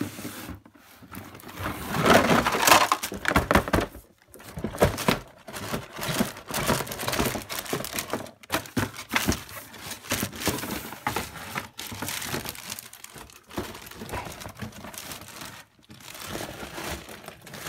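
Cardboard toy packaging and plastic bags of toy train track pieces being handled and crinkled, in irregular rustling bursts, loudest a couple of seconds in.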